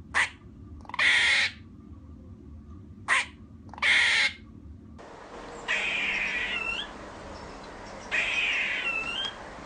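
Squirrel barking: four short harsh barks, then, after a change of recording, two longer harsh calls that each end in a brief upturned squeak.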